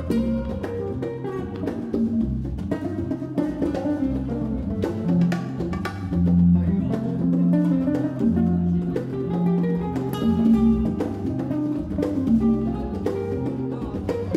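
Live jazz combo playing: acoustic guitar and electric bass over hand percussion on congas, with a walking low bass line under steady percussive strokes.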